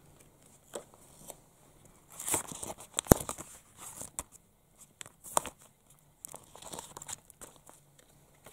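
A homemade paper sticker being peeled off a plastic-film-covered notebook page: irregular crinkling and crackling of plastic and paper, with a sharp click about three seconds in.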